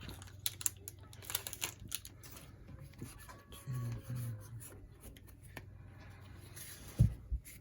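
Pokémon trading cards being handled and slid through the fingers, with light rustling and small clicks, and one soft knock near the end.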